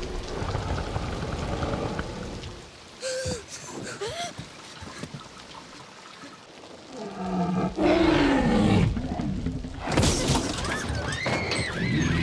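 Film soundtrack: steady heavy rain under the Tyrannosaurus rex's deep growls, with a loud falling growl about eight seconds in. Near the end a girl screams in repeated high-pitched cries.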